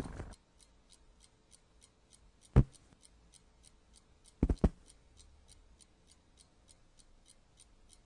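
A clock ticking steadily in a quiet room, about two to three ticks a second. There is one loud sharp click about two and a half seconds in, and a quick pair of clicks a couple of seconds later.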